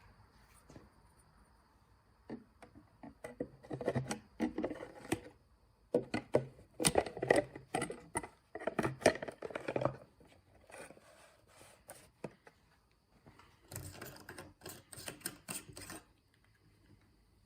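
Rapid clicking and clattering of small metal carburetor parts and tools being handled during cleaning, in two long runs of clicks, the second near the end.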